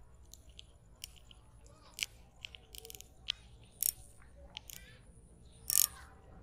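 Scattered light clicks and taps from handling a spinning reel and rod, about half a dozen at irregular intervals, the loudest near the end.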